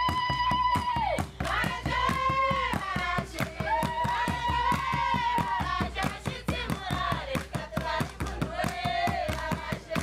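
A youth group singing together to steady, rapid hand clapping, with long held notes in the melody.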